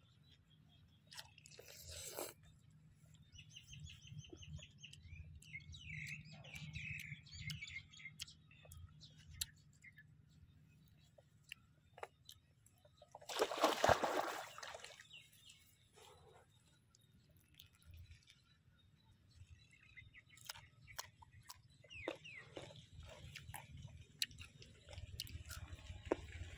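Crunchy chewing of raw green mango, with short mouth clicks throughout and birds chirping in the background. A louder, noisy sound lasting about a second comes about halfway through.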